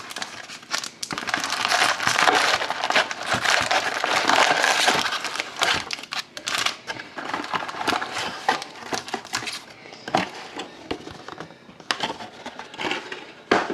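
Foil wrappers of sealed Upper Deck SPx hockey card packs crinkling and crackling as they are handled, densest over the first five seconds or so, then sparser rustles and clicks.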